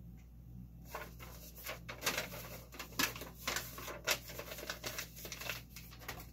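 A sheet of paper rustling and crinkling in the hands as it is folded up, with irregular sharp crackles starting about a second in.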